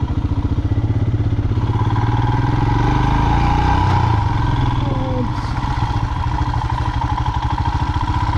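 Royal Enfield motorcycle engine running at a steady, even pulse as the bike rides along a gravel trail, heard from the rider's seat. The engine eases off slightly about four seconds in.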